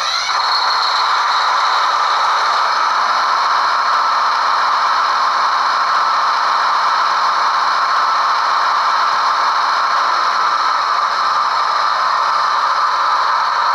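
HEP (head-end power) diesel generator sound from the ESU LokSound decoder in an HO scale Rapido F40PH-2D model locomotive. It runs as a steady, unchanging drone through the model's small onboard speaker.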